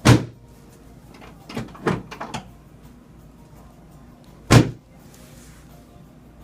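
Chiropractic adjustment on a treatment table: two sharp thuds about four and a half seconds apart, with a few lighter knocks between them.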